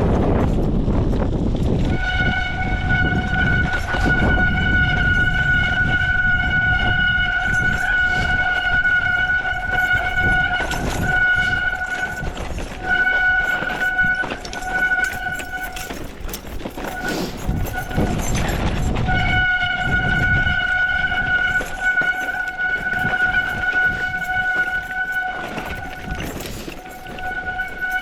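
Mountain bike brakes squealing in a steady high-pitched tone. The squeal cuts out and comes back several times as the brakes are released and reapplied, over a low rumble and rattling from riding on rough ground.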